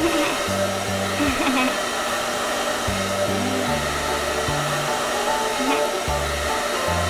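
Hair dryer blowing steadily, a dubbed hair-dryer sound effect, over background music with a bass line.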